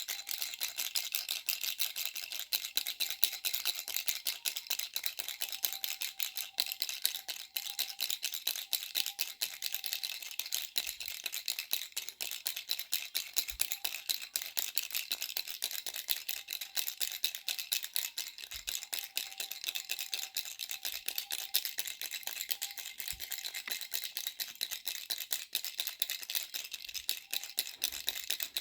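Baby rattle shaken continuously: a fast, dense clatter of small clicks that keeps going without a break.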